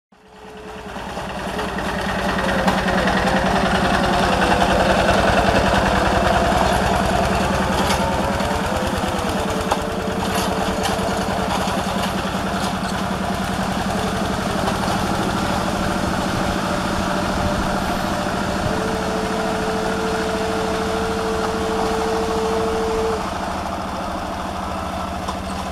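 Two-wheel walking tractor's single-cylinder diesel engine running steadily with a rapid chugging beat while it pulls through a flooded rice paddy. The sound fades in over the first couple of seconds.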